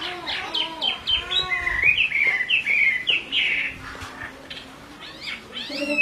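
Chinese hwamei (họa mi) singing: a quick run of varied whistled notes that rise, fall and warble. The notes thin out past the middle and pick up again near the end.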